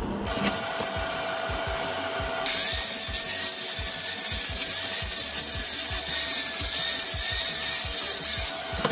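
Electric power tool whining steadily, then cutting into the weld-filled steel wheel rim with a loud hiss from about two and a half seconds in until shortly before the end; the rim's worn lug holes have been welded up and are being reworked.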